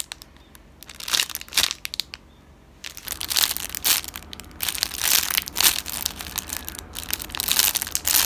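Clear plastic packaging crinkling as a foam roll-cake squishy is squeezed through its sealed bag. A few crinkles come in the first two seconds, then a quieter gap, then near-continuous crinkling from about three seconds in.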